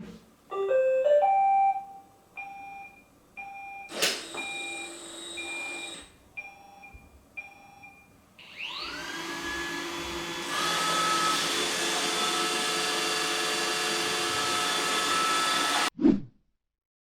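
iRobot Roomba robot vacuum starting up: a short rising electronic chime and a series of beeps with a sharp click, then its vacuum motor spinning up with a rising whine and running steadily before cutting off suddenly near the end.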